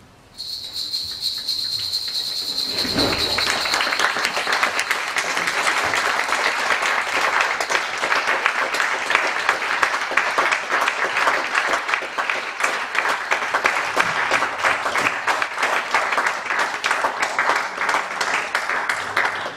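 A long, high whistle at the start, then an audience applauding steadily: dense, even clapping that sets in about three seconds in and holds until the end.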